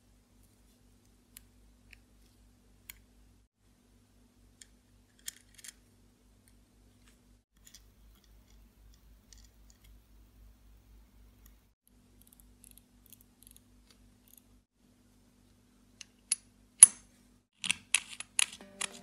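Small metallic clicks and taps of a wristwatch being reassembled. Scattered faint clicks, a faint scratching of a watchmaker's screwdriver on the rotor screw in the middle, then a quick run of sharp clicks near the end as the stainless-steel caseback is fitted onto the case.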